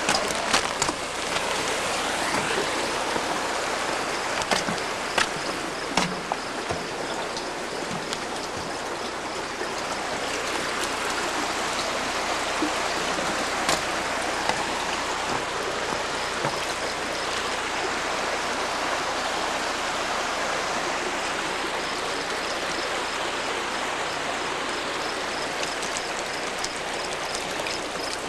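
Stream water running steadily over rocks, a constant rushing hiss. A few sharp knocks come in the first several seconds.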